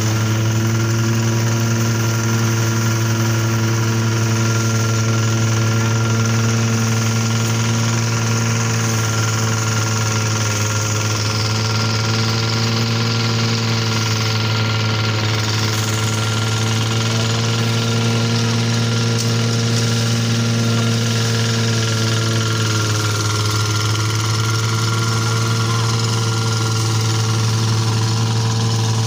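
Small engine of a portable rice thresher running steadily at constant speed, its pitch sagging slightly a couple of times.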